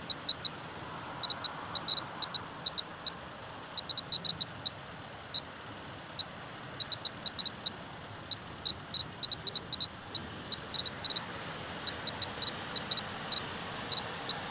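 Clear-Pulse Mr. Gamma A2700 radiation meter's buzzer giving short high beeps at random, uneven intervals, roughly three a second and sometimes bunched, one for each gamma count it detects, at a low dose rate of about 0.04 μSv/h. A steady background hiss lies underneath.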